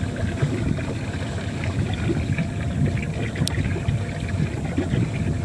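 Steady wind noise on the microphone over water lapping against a small fishing boat, with one light click about three and a half seconds in.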